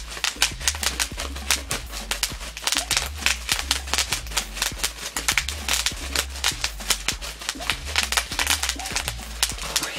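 Plastic bubble wrap popped by hand in a fast, irregular run of sharp pops, several a second, over background music with a steady low bass.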